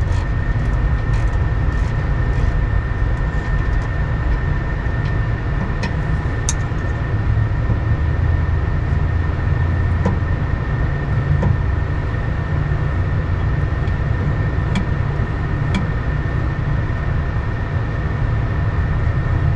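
Steady low rumble and hum of background machinery, with a few faint clicks of a wrench working a throttle-stop bolt on the carburetor linkage.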